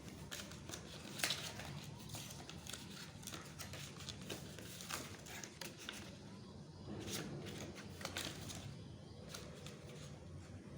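Paper and card packaging being handled, rustling with scattered clicks and taps; the sharpest tap comes about a second in.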